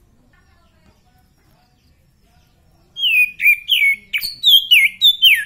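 Caged oriental magpie-robin (kacer) singing: after a quiet start, a fast run of loud whistled notes begins about three seconds in, most of them sliding downward in pitch.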